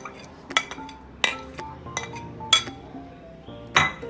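Metal spoon clinking against white serving bowls as sliced bananas are scooped from one bowl into another: several sharp clinks, the loudest near the end.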